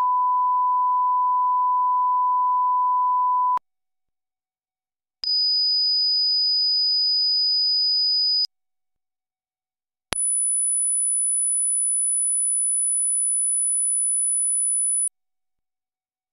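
Line-up test tones accompanying colour bars at the head of a tape: a steady pure mid-pitched tone for about three and a half seconds, then after a short silence a much higher one for about three seconds, then after another silence a very high one for about five seconds.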